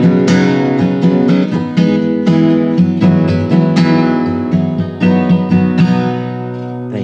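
Steel-string acoustic guitar strummed in a steady rhythm, two to three strokes a second, closing out a song; near the end the last chord is left to ring and fade.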